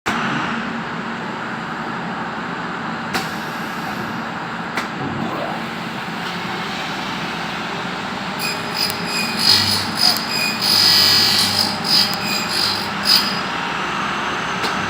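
Three-tool uPVC CNC cleaning machine running: a steady machine noise with two sharp clicks, then from about eight seconds in a high whine that comes and goes in short stretches for some five seconds as its tools run.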